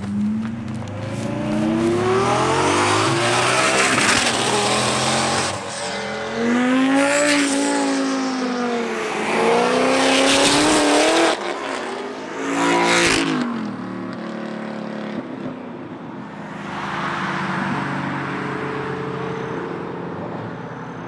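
High-performance car engines accelerating hard, the pitch climbing steeply and rising and falling in several surges over about the first thirteen seconds, one of them cutting off abruptly. After that, engines run at lower revs while a car rolls past with a swell of road noise.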